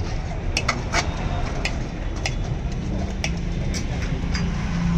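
Steel ladle and spoons clinking against a steel curry pot and plates in sharp, irregular clicks, over a steady low rumble of street traffic.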